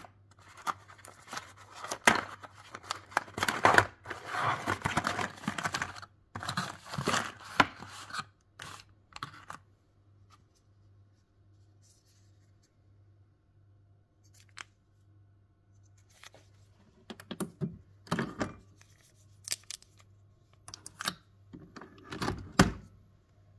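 Cardboard coffee-capsule box being torn open by hand: tearing and rustling of card for roughly the first ten seconds, then a quiet stretch, then a few scattered knocks and clicks of handling near the end.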